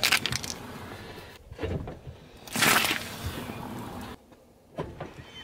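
A car tyre rolling slowly over objects on asphalt and crushing them: several crunching, squashing noises, the loudest about two and a half seconds in, with low tyre rumble between.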